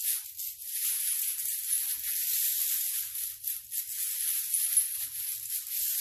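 Interlocking fired-clay chain links of a ceramic sculpture rattling and clinking against each other as it is lifted and shifted by hand: a continuous high-pitched rattle with no low tones.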